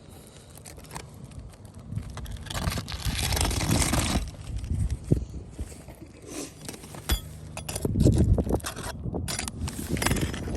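Irregular scraping and handling noise as an old roof shingle is worked back into place, coming in uneven bursts with a few sharp clicks.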